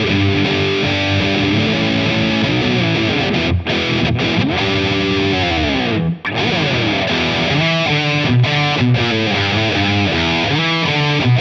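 Gusta GST-05 Strat-style electric guitar played through overdrive: a single-note lead with chords, with sweeping pitch bends near the middle and a brief break about six seconds in.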